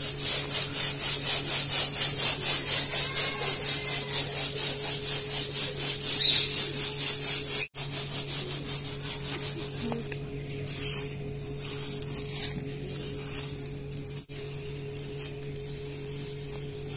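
Linseed and chaff rasping rhythmically in a reed winnowing basket (chhaj) as it is shaken, about four to five strokes a second. After a brief break about eight seconds in, the rustling goes on softer and less regular.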